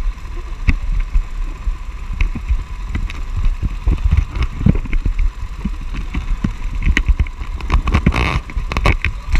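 Camera microphone rubbing and bumping against a cotton shirt, giving an irregular run of low thumps and rumble with scattered knocks.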